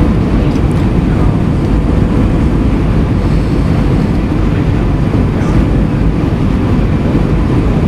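Steady cabin noise of an Airbus A320 descending on approach: engine and airflow rush heard through the fuselage at a window seat, heaviest in the low end, with a faint steady hum.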